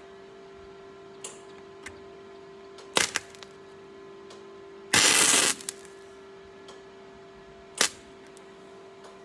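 MIG welder tack-welding steel: short bursts of crackling arc, three in all, the longest about half a second a little past halfway, over a steady hum.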